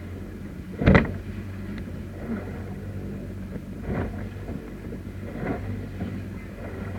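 Motorboat engine running steadily with wind on the microphone, and a loud thump about a second in, with smaller knocks later.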